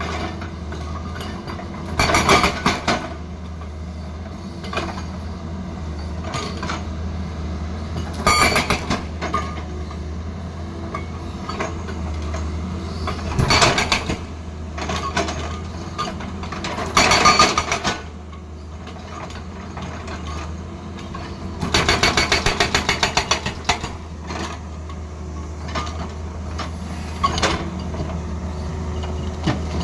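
Tata Hitachi excavator's diesel engine running steadily under several bursts of rapid, evenly spaced hammering from a hydraulic breaker striking hard stone. The longest burst comes about three-quarters of the way through.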